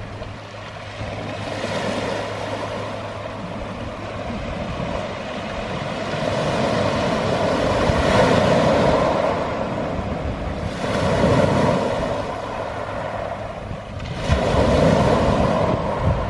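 Small waves breaking and washing up a cobble beach, the surf swelling and easing in several surges, the loudest near the middle and near the end.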